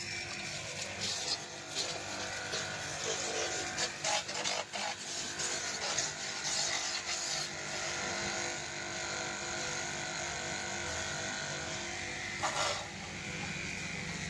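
A small motor running with a steady hum, with scattered clicks and knocks during the first half and one more knock near the end.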